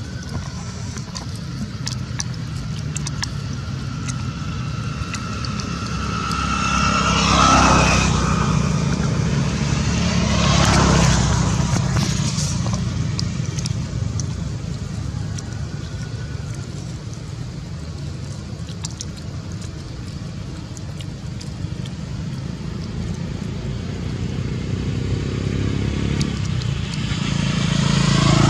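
Road traffic: a steady low rumble, with vehicles passing loudest about 7 to 8 seconds in and again about 11 seconds in, and swelling again near the end.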